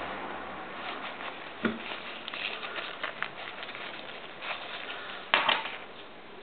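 Phone pouch being handled: scattered light clicks and rustles over a steady hiss, with one louder sharp clatter about five seconds in.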